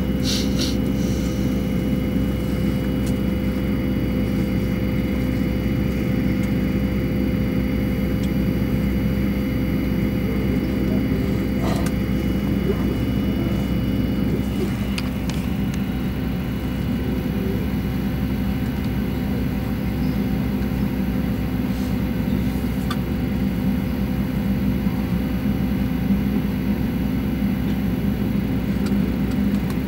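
Steady drone and hum of an airliner heard from inside the cabin while it stands on the ground, the engines and air systems running at a constant level.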